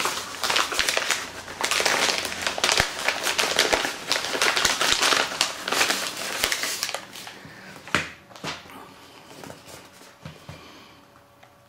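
Crinkling and rustling of a mailing envelope being handled and opened while a small cardboard box is pulled out of it, with a sharp crackle about eight seconds in. The rustling thins out and gets quieter over the last few seconds.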